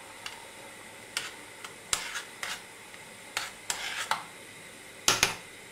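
A spoon stirring orange sauce in a stainless steel saucepan on a gas hob, with irregular scrapes and light clinks against the pan, the loudest near the end. The sauce is being stirred as corn flour thickens it.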